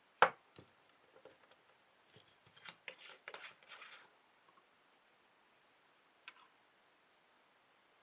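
Small hard clicks and taps from handling a petrol lighter and its refuelling gear: one sharp click near the start, a cluster of rattling clicks around the middle, and a single click later.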